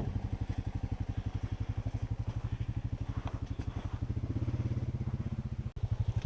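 A small engine running at a steady low speed, its exhaust pulsing evenly at about a dozen beats a second, with a brief dropout near the end.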